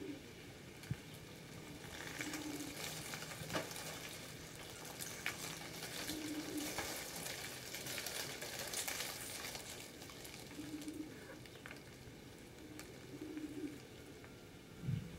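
Faint rustling of yarn with scattered light clicks from knitting needles being worked by hand.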